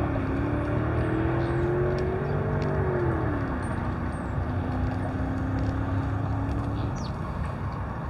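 A motor vehicle's engine running, its pitch easing up and then dropping about three seconds in before holding steady. Faint bird chirps sound above it.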